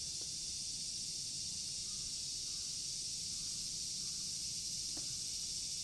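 Chorus of cicadas, a steady high-pitched drone without a break, with one faint click about five seconds in.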